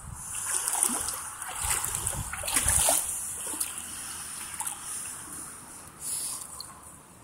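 Shallow pond water splashing and sloshing as someone wades through it, in irregular bursts that are loudest about two and a half seconds in, over a steady high insect trill.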